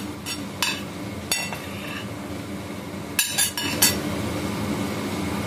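Steel spoon clinking and scraping against a ceramic plate and the rim of a steel bowl as chopped fruit is pushed off into custard: a few scattered sharp clinks, with a quick cluster a little past halfway. A steady low hum runs underneath.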